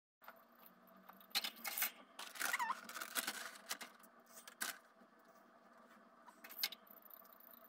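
Handling noises at a wire cage: scattered clicks, clinks and rustles as a hanging food toy is fitted to the cage, with a short squeak about two and a half seconds in.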